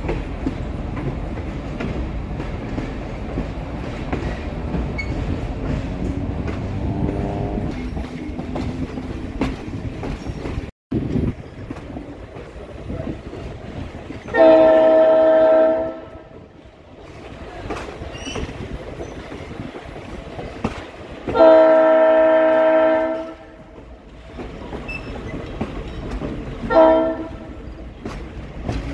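Diesel locomotive horn sounding two long blasts and then a short one, the opening of a grade-crossing signal. Under it runs the steady rumble and clickety-clack of the moving train, heard from a car in the train.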